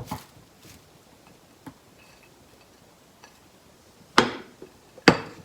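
Dishes and utensils clinking and knocking while a plate is being garnished with shredded cabbage and carrot: a click at the start, a couple of faint ticks, then two louder knocks in the last second and a half.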